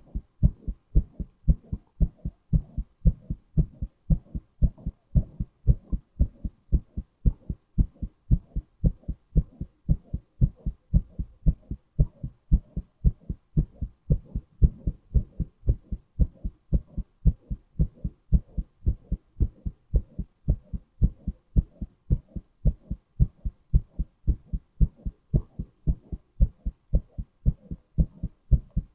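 A man's heartbeat: a steady, even rhythm of low, dull lub-dub thuds, each beat a stronger thud followed by a weaker one.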